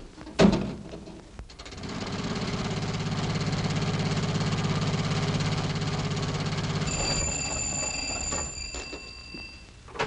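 Radio sound-effects machine imitating an old jitney's engine. After a knock, a rapid, even chugging starts about two seconds in, runs steadily, then fades. Near the end a telephone bell rings.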